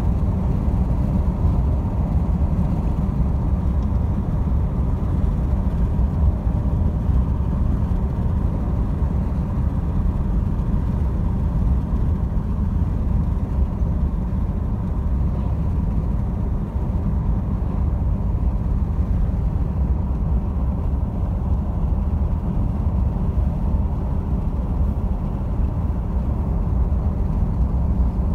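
Steady low rumble of a vehicle driving along a road: engine and tyre noise heard from inside it.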